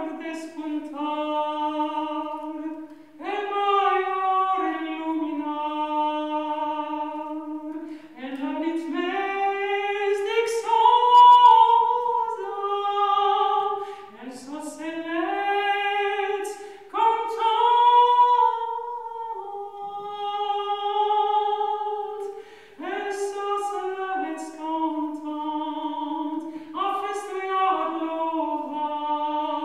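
Solo male voice singing unaccompanied, in slow phrases of long held notes with short breaths between them.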